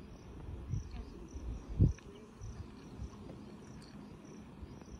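Insects chirping in a steady string of short, high-pitched pulses, over a low wind rumble on the microphone. A brief low thump about two seconds in.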